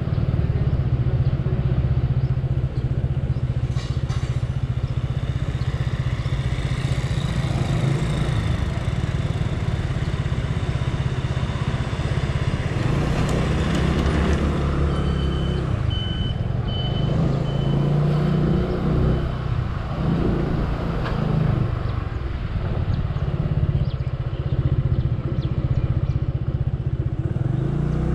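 Motor scooter's small engine running steadily at low speed, a low rumble throughout as it rides along town streets. A short run of high beeps sounds about halfway through.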